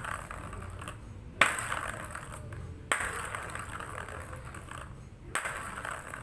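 A plastic ball rolling around a plastic circular cat track toy: three sharp clicks, about a second and a half in, near three seconds and just past five seconds, each followed by a rolling whirr that slowly fades.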